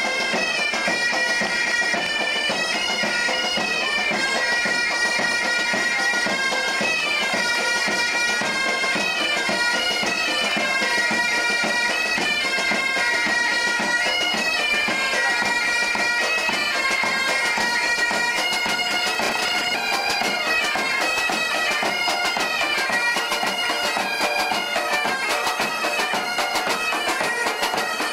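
Marching pipe band playing a tune on bagpipes, the drones held steady under the melody, with drums beating time.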